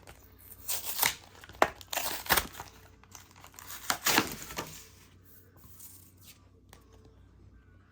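Packaging of a Pokémon card product torn open by hand: a run of tearing and crinkling with sharp crackles for about four seconds, dying down to faint handling sounds near the end.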